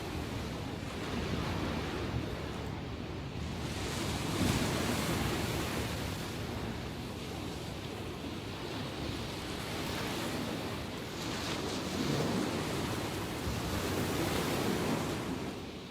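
Sea waves after a typhoon, washing onto the shore in a steady roar of surf that swells louder several times as successive waves break.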